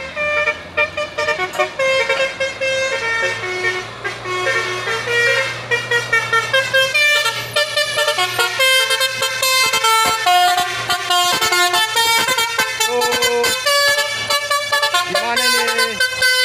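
A vehicle's musical multi-tone horn playing a running tune of quickly changing notes, over the steady low hum of a heavy engine.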